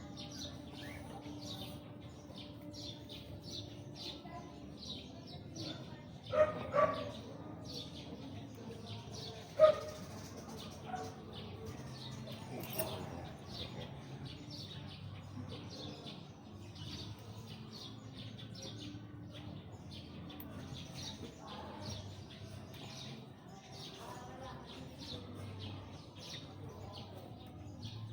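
Small birds chirping over and over, with a dog barking twice about six seconds in and once more a few seconds later.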